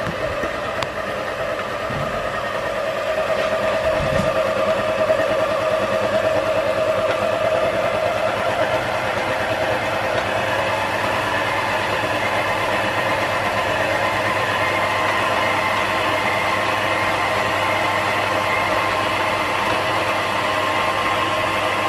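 Kenwood Chef stand mixer running steadily with its K-beater, a constant motor whine, churning a thick, wet bread-pudding mixture of soaked bread and sultanas. A couple of low knocks come in the first few seconds.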